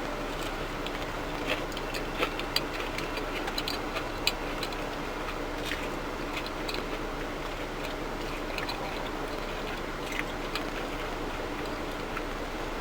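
Eating a cream-filled muffin: small, sharp mouth clicks and soft crinkles from its paper liner, scattered and loudest in the first few seconds, over a steady background noise.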